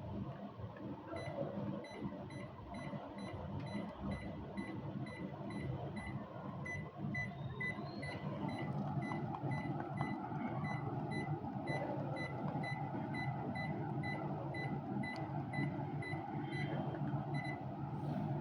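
A long run of short, high electronic beeps, about two a second, over a steady low hum of running machinery.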